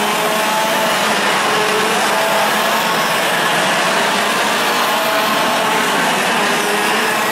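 Several 125cc two-stroke TaG racing kart engines buzzing together as a pack of karts runs through a tight corner, their overlapping engine notes shifting up and down in pitch.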